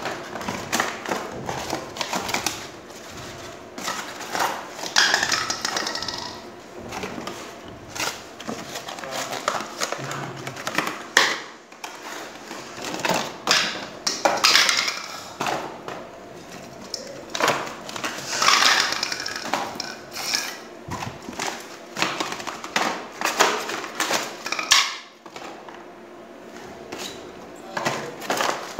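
Small cardboard boxes being handled and emptied, and plastic LED bulbs knocked and set down on a hard table top: irregular clicks and light knocks, with several short bursts of rustling and scraping from the cardboard.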